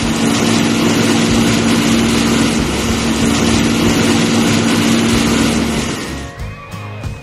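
Concrete mixer truck's engine running with a loud steady drone over a rush of noise. It fades out about six seconds in, giving way to music.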